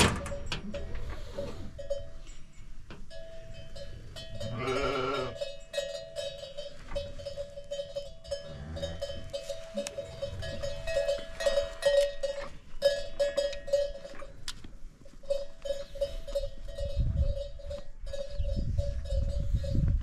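Metal bells on penned goats and sheep ringing and clinking steadily as the animals move, with one animal bleating once about five seconds in.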